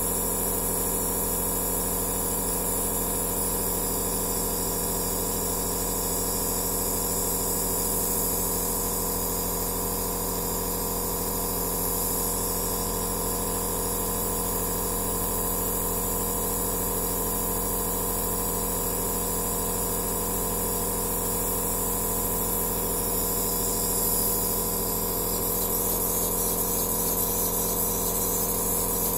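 Compressor nebulizer (aerosol therapy machine) running steadily: an even motor hum with a hiss of air and mist over it.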